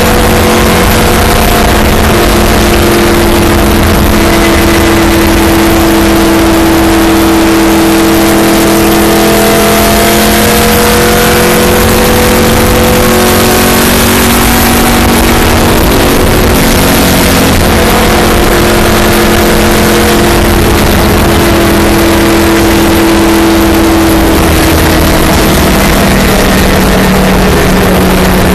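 Stock car's V8 engine running hard at speed, heard from inside the cabin with wind and road noise, so loud that the recording is at the top of its range. The engine note holds steady and shifts somewhat lower near the end.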